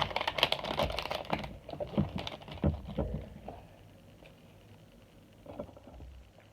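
Handling noise: a quick run of clicks and light knocks, like objects being picked up and set down. It thins to a few knocks after about a second and a half and goes quiet after about three seconds.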